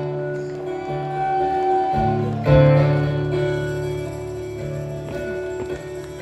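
Live music: guitar chords strummed and left to ring, with a fresh, louder strum about two and a half seconds in.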